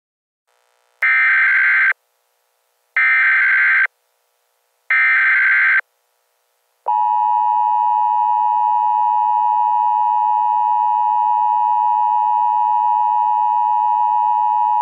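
Emergency alert broadcast signal: three short buzzy data bursts of the alert header, each about a second long and two seconds apart, then the steady two-tone attention signal, which starts about seven seconds in and holds unbroken.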